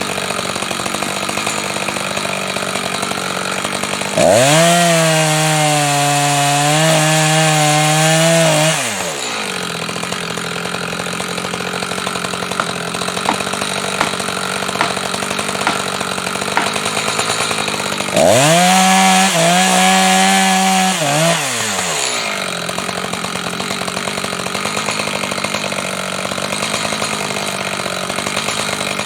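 Chainsaw idling, opened up to full throttle twice for a few seconds each while cutting into a white spruce, each time dropping back to idle with a falling pitch; it revs up again right at the end.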